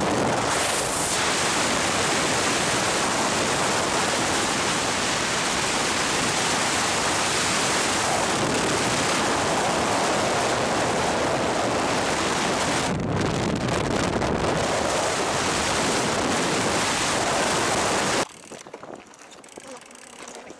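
Loud, steady roar of a storm, with wind buffeting the microphone, that cuts off abruptly near the end.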